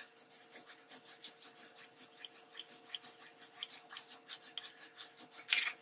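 Damp cloth scrubbed back and forth over a glossy magazine page in quick, even strokes, about five a second, lifting the printed ink. A faint steady hum sits underneath, and there is one louder swish near the end.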